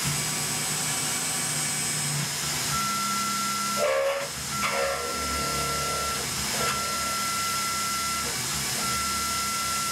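CNC mill's coolant-mist nozzles hissing steadily while a small end mill cuts into a rifle lower receiver. From about three seconds in, a high cutting whine breaks off and comes back every second or two, with each pass of the tool.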